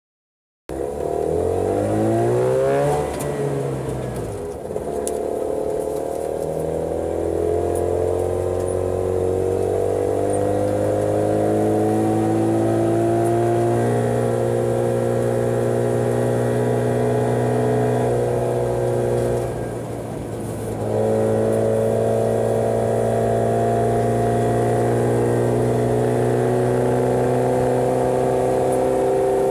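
Subaru 360's small two-stroke twin engine driving the car: the revs rise steeply, fall away about three seconds in, then climb slowly into a steady drone. The revs drop again briefly around twenty seconds in and come back up.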